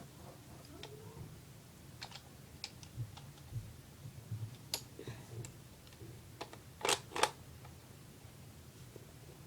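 Scattered light clicks and taps of a plastic Lego shotgun model being handled, with two louder clicks in quick succession about seven seconds in.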